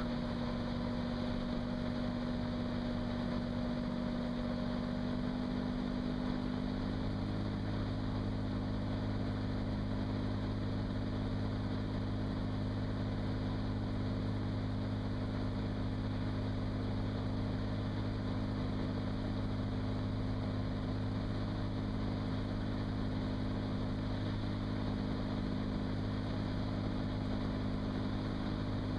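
Cirrus SR22's 310 hp six-cylinder engine and propeller droning steadily in cruise, heard from inside the cockpit. The low drone grows stronger about seven seconds in.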